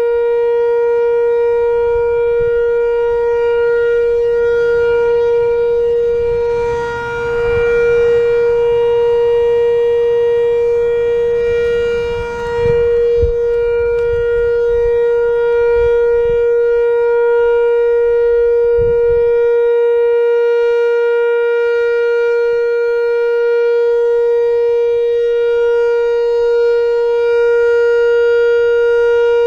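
Late-1980s analog Whelen WPS-4000-4 electronic warning siren sounding its steady Alert signal: one unwavering tone rich in overtones that neither rises nor falls, briefly dipping in level twice. It isn't very loud, which the uploader puts down to its age and a couple of blown-out drivers.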